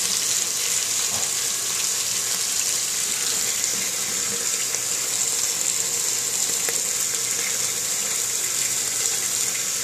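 Shower running with a steady hiss of falling water, left on to test for a leak. Water is escaping through cracked grout at the base of the shower.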